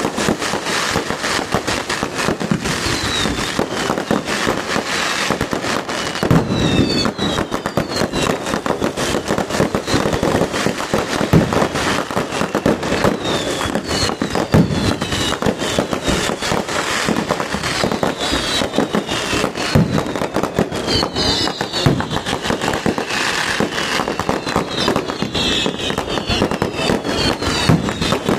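Fireworks going off: a continuous rapid crackle of firecrackers with louder bangs every few seconds, and short falling whistle-like tones now and then.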